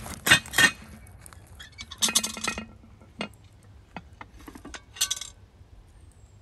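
Metallic clinks and rattles from a cast iron Dutch oven and its lid as the pot is handled and the lid is lifted off the rim. Two loud clinks come in the first second, a short rattle about two seconds in, a few single clicks, and another rattle near the end.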